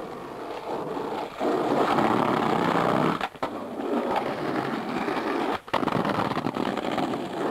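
Skateboard wheels rolling on rough asphalt, a steady grinding roll broken by three short gaps.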